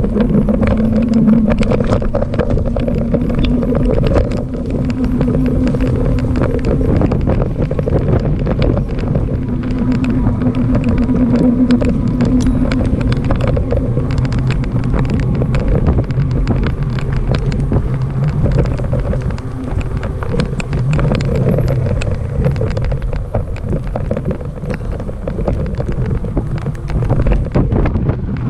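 Steady road noise while riding along a road: wind rushing over the microphone with a low rumble, and motor vehicles droning past, strongest about a second in and again around ten seconds in.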